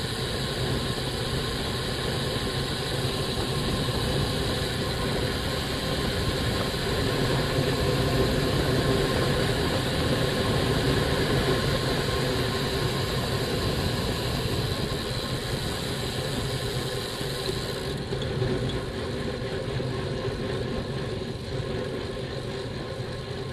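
Wind rushing over a bike-mounted camera's microphone, with tyre noise from a road bike coasting downhill at 30 to 40 km/h. It swells as the speed builds and eases off near the end.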